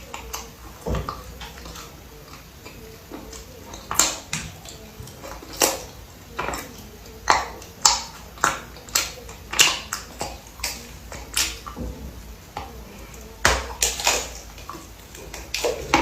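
Close-miked eating sounds: chewing, with irregular wet mouth smacks and clicks, more frequent from about four seconds in.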